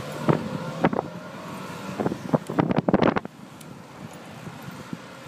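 Bicycle rattling and knocking over brick paving, with wind on the microphone; the knocks come in irregular clusters and die away after about three seconds, leaving a quieter steady rush.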